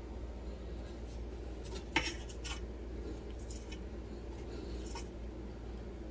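Black slotted plastic serving spoon knocking and scraping against a plate as rice is served: a few short clicks and scrapes, with one sharp knock about two seconds in, over a steady low hum.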